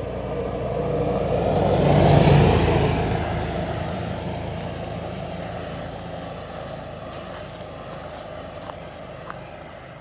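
Kawasaki Mule 4010 side-by-side's liquid-cooled V-twin engine driving away, loudest about two seconds in and then fading steadily into the distance. It runs smoothly on both cylinders after the broken spark plug was replaced.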